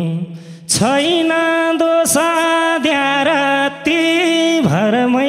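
Nepali dohori folk music: a long, ornamented melody line held over a steady low keyboard note, with a few sharp drum hits. The music breaks off briefly near the start and again near the end.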